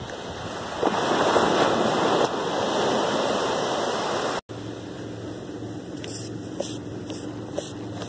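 Small ocean waves breaking and washing up a sandy beach, loudest a second or two in. After an abrupt cut a little past the middle, a steady low machine hum takes over, with a few light ticks.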